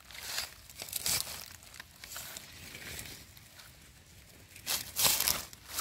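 Dry leaf litter rustling and crackling in short, irregular bursts as mushrooms are picked from the forest floor by hand, with the loudest rustle about five seconds in.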